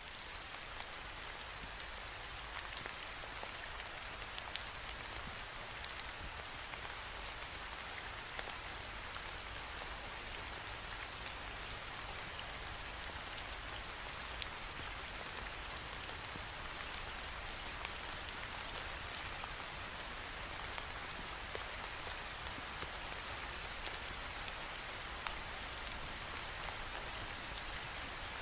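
Steady rain falling against a window pane: an even hiss with scattered sharper ticks of single drops striking the glass.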